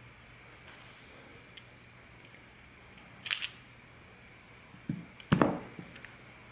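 Small metal parts clinking as needle-nose pliers work on a small outboard carburetor: one bright ringing clink about three seconds in, then a knock and a short clatter about five seconds in.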